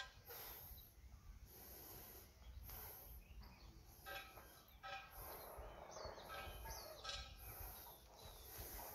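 Faint outdoor quiet in which birds chirp a few times, mostly in the second half, over a low rumble of background noise.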